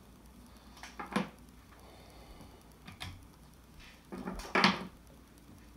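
Loose camshaft bearing caps and a camshaft from a GM 2.0 L LNF cylinder head clinking as they are handled and set down on a countertop. There are a few light clinks about a second in and near three seconds, then the loudest clatter of metal on metal about four and a half seconds in.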